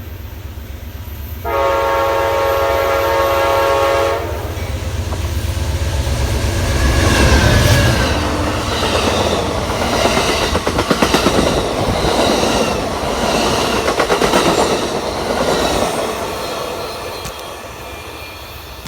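Amtrak passenger train sounding its horn in one chord-like blast of about two and a half seconds, then passing close by. The locomotive's low rumble comes first, then the cars roll past with a rhythmic clickety-clack of wheels over rail joints, fading near the end.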